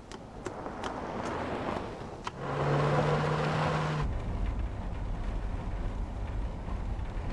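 A car: a louder rush with a steady low drone for about a second and a half, then a steady low engine rumble heard from inside the car's cabin.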